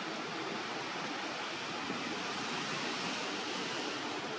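Steady, even outdoor hiss with no distinct events.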